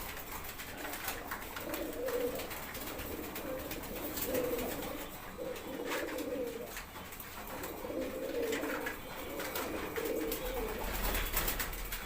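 Domestic pigeons cooing in a loft: repeated low, wavering coos, one phrase after another, with faint scattered clicks.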